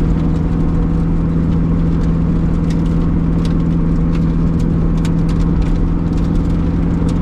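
Engine of a Lotus Elise Sport 220 II, a supercharged Toyota 2ZR four-cylinder, running at a steady cruise with even pitch, heard from inside the cabin over tyre and road noise. Scattered sharp ticks run through it.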